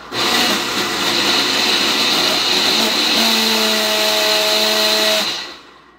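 Personal bullet-style blender running, blending a spinach-and-fruit shake, for about five seconds before winding down. A steady hum comes in partway through.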